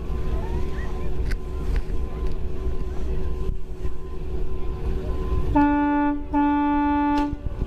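An amphibious tour vehicle's engine running steadily, then its horn sounds twice about five and a half seconds in: a short blast and a longer one.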